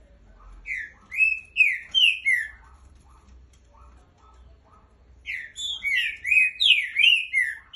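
Trinca-ferro (green-winged saltator) singing two phrases of loud, slurred whistled notes, a few seconds apart.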